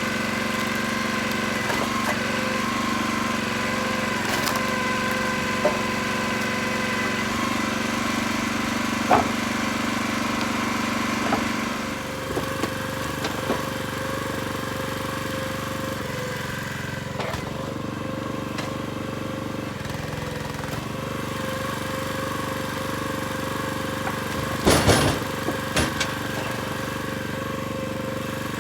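An engine running steadily, with occasional knocks. Its tone and level drop about twelve seconds in, and a short burst of clattering knocks comes near the end.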